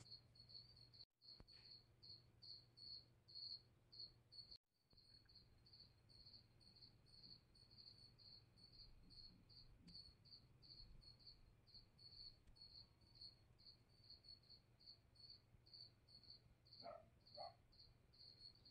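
A cricket chirping faintly and steadily, about two to three chirps a second, over a low steady hum. The sound drops out briefly twice near the start.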